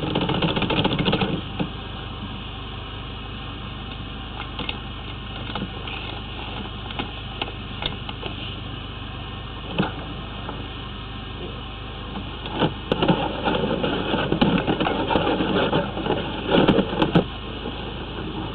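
High-pressure drain jetter's engine running with a steady hum. Scattered clicks sound over it, and there are louder stretches of rough noise in the second half.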